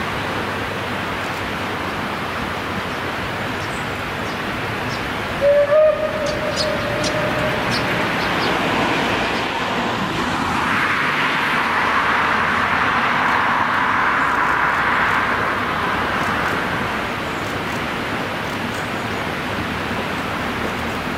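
Distant Austrian 298-class narrow-gauge steam locomotives: a short whistle about five seconds in, then the train's running noise swelling and fading as it crosses a steel truss bridge. A steady rush of water from a weir lies underneath.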